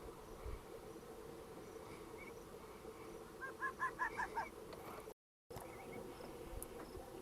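Indian fox calling to its mate: a quick run of about six short, evenly spaced call notes a little past the middle, over a steady low drone. The sound drops out briefly just after the calls.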